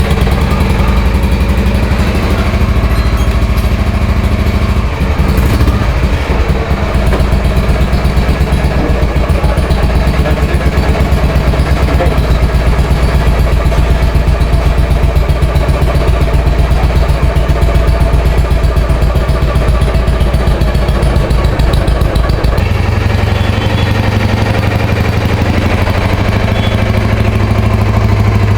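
Royal Enfield Bullet 350 cast-iron single-cylinder four-stroke engine running steadily with an even exhaust beat; its note changes about three-quarters of the way through.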